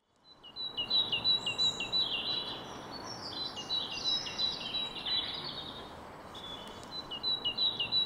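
Great tit singing its two-note 'teacher, teacher' song, a high note then a lower one, repeated in quick runs. A more varied stretch of song comes in the middle, over steady background noise.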